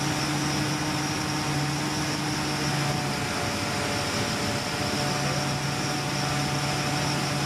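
Metax MP7 engine-driven high-pressure water pump unit running steadily under test: a low engine-and-pump hum with a steady high whine over it. The low hum dips for a couple of seconds midway.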